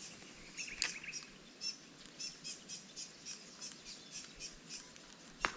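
A bird chirping over and over, about three short high chirps a second. A sharp click comes about a second in, and a louder one near the end.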